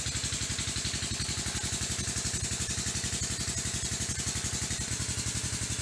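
A small engine running steadily at idle, with a rapid, even low pulsing, over the hiss of a flowing stream.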